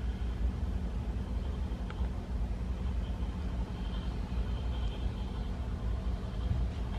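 Steady low background rumble, with a faint high hum above it and a single small click about two seconds in.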